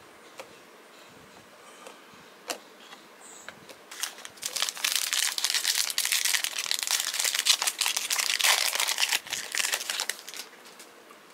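Plastic wrapping of trading-card packaging crinkling for about six seconds as it is handled, after a few light taps.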